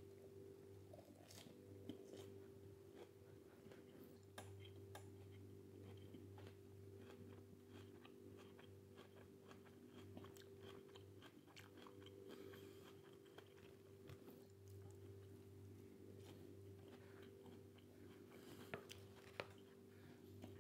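A person chewing a mouthful of lettuce salad: faint crunching with many small clicks, over a steady low hum.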